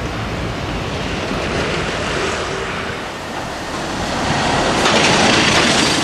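Steady road traffic noise, swelling about two thirds of the way in as a vehicle passes close by.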